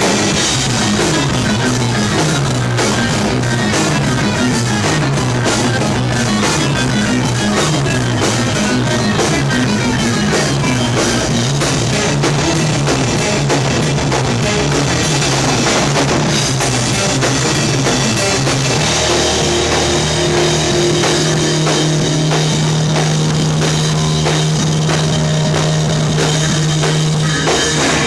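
A rock band playing live with drum kit, electric guitar and bass; the bass line moves for the first two-thirds, then settles on a long held low note about two-thirds of the way in.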